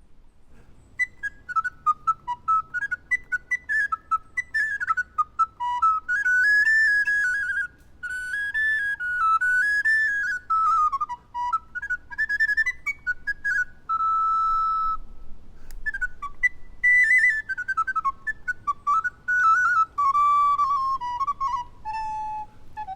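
Solo recorder playing a quick, ornamented melody, a single line of fast stepping notes with one held note about two-thirds through and a short pause after it, then phrases that drift downward.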